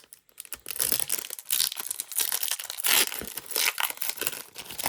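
Foil Pokémon card booster pack being torn open by hand, with a run of crinkling, crackling tears.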